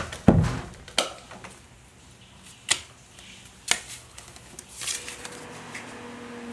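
A dull, heavy thump, then three sharp clicks spread about a second apart, and a brief rustle near the end.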